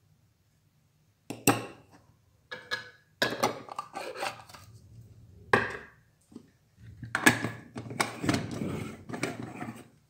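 Kitchenware handling: a series of knocks, clinks and scrapes as a glass coffee jar is closed and set aside and an aluminium moka pot is handled and put together. The busiest clatter comes in the last three seconds.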